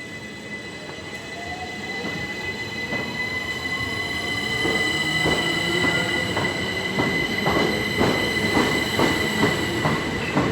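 Class 377 electric train pulling away, its motor whine rising in pitch over a steady high tone. About halfway through, the wheels start clicking over the rail joints, the clicks coming faster and louder as it speeds up.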